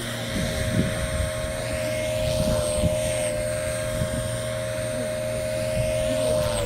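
Beam E4 electric RC helicopter in flight: a steady high whine from its motor and rotor head, over gusty wind buffeting the microphone.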